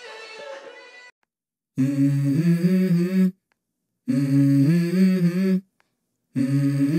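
Background music: a song's last notes fade out about a second in, then after a short silence a hummed vocal intro begins, three phrases of stepped notes with short pauses between them.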